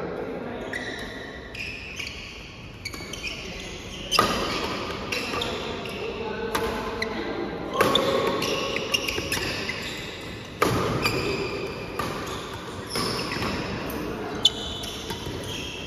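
Badminton rally: rackets striking a shuttlecock, a sharp echoing hit every one to three seconds, with players' voices underneath.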